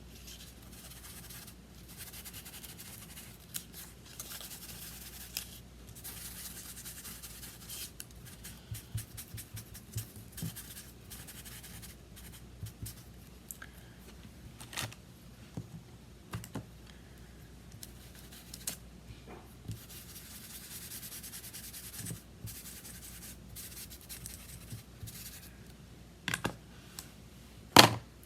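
Paper being handled for collage: rustling and scraping of paper sheets, with scattered light taps and clicks on the work surface and one sharper knock near the end.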